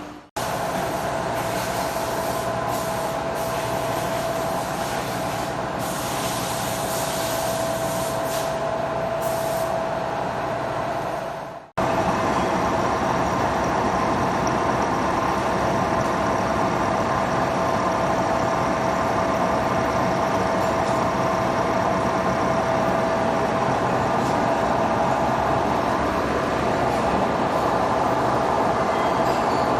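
Horizontal boring machine running steadily, a continuous machine noise with a steady whine; the sound drops out briefly just after the start and again about twelve seconds in.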